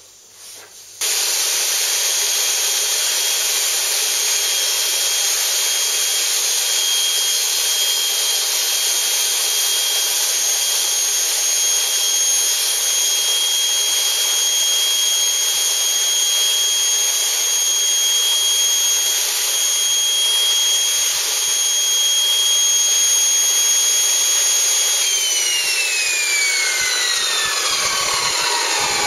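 Table saw switched on about a second in, running steadily with a high whine while its spinning blade is raised up through a new zero-clearance insert to cut the insert's slot. Near the end it is switched off and the whine falls in pitch as the blade spins down.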